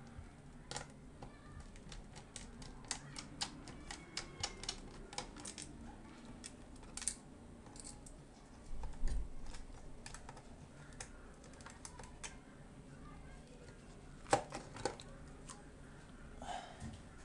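Faint, irregular small clicks and taps of a screwdriver and fingers on the plastic and metal of a laptop's hard-drive bay as the hard drive is worked loose and lifted out, with a soft low thump about nine seconds in.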